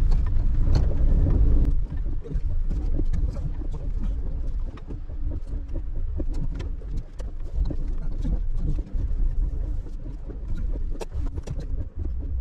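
Car moving slowly, heard from inside the cabin: a low rumble of engine and tyres on wet pavement, a little louder for the first two seconds. Rain ticks on the roof and windscreen throughout.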